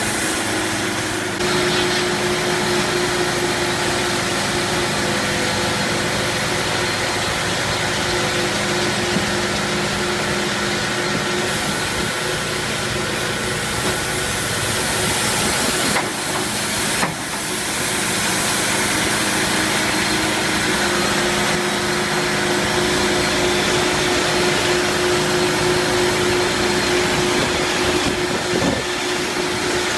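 Sawmill machinery running: a steady mechanical hum under a loud, even hiss, with two brief dips about halfway through.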